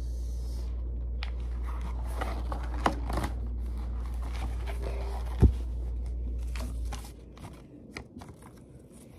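Paper pages of a spiral-bound notebook rustling and flipping as they are handled, with scattered clicks and one sharp knock about five and a half seconds in. Under it runs a low steady hum that drops away about seven seconds in.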